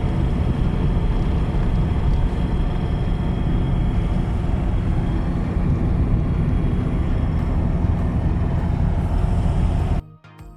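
Car running: a steady low rumble of engine and road noise, cutting off abruptly near the end.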